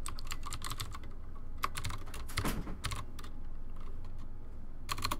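Typing on a computer keyboard: a quick run of keystrokes, a short pause, more keystrokes, then a couple of last taps near the end. A low steady hum runs underneath.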